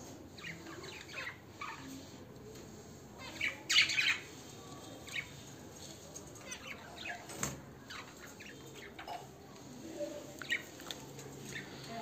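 Budgies chirping in short, high cheeps, loudest in a cluster about four seconds in, as the hen feeds her newly hatched chicks in the nest.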